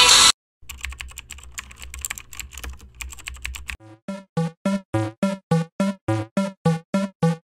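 A song cuts off just after the start, followed by about three seconds of rapid typing-like clicking over a low hum. From about four seconds in comes an even run of short electronic notes, about three or four a second. These are the sound effects of an animated thank-you end screen.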